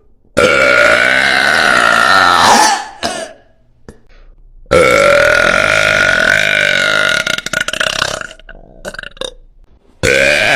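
A woman's very loud, long burps: two of about two and a half to three seconds each, with a third starting near the end.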